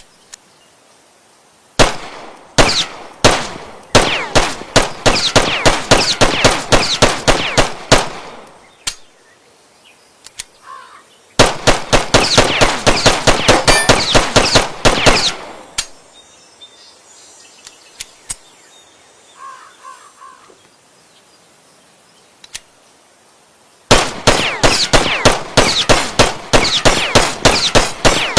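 Glock 17 9 mm semi-automatic pistol fired in three long strings of rapid shots, about three to four a second, each shot with a sharp crack and echoing tail. Pauses of several seconds separate the strings.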